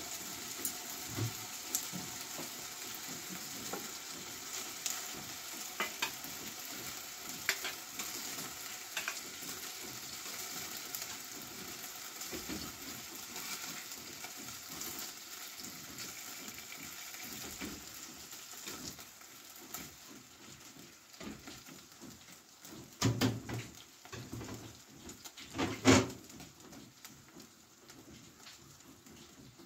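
Diced chicken sizzling as it browns in a frying pan, with small clicks and scrapes of a utensil stirring it. The sizzle fades over the second half, and there are two louder knocks near the end.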